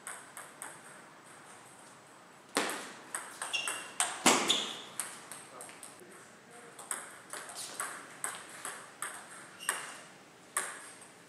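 Table tennis ball in two rallies: a run of sharp clicks as the ball is struck by bats and bounces on the table. A few light taps come in the first second, the first rally runs from about two and a half seconds in to five seconds, and the second from about seven seconds in until near the end.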